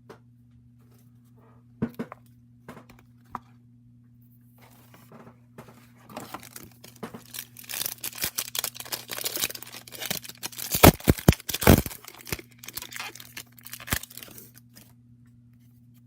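A trading-card pack wrapper being torn open and crinkled, the tearing loudest about eleven seconds in. A few light clicks come before the crinkling starts.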